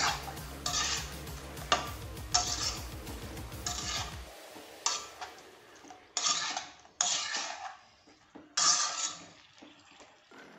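Metal spatula stirring chicken pieces in a kadai: a series of short scraping strokes against the pan, about one a second.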